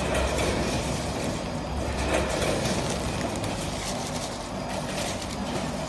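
ATM 420W chips weighing and packing machine running: a steady mechanical hum and noise with faint scattered clicks.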